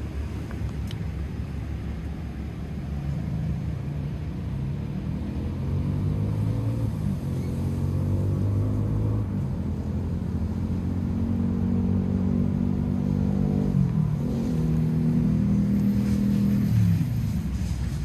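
A motor vehicle's engine accelerating, its pitch climbing over several seconds. It drops sharply about fourteen seconds in, climbs again, then falls away near the end, over a low rumble.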